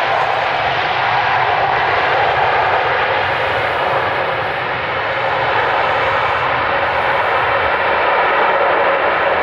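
Jet engines of a Boeing 787 Dreamliner running at high power as it rolls along a wet runway, throwing up spray: a loud, steady jet roar that dips slightly about halfway through.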